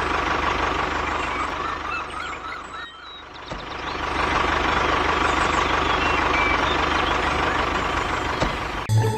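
Steady vehicle-engine running noise with a constant high whine, dipping briefly about three seconds in and then resuming.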